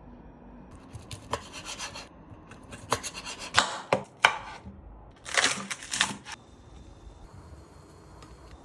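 Knife cutting on a cutting board in three short bouts of slicing and scraping strokes with sharp knocks, while ingredients are prepared for boiled pork belly. The last two seconds are quieter.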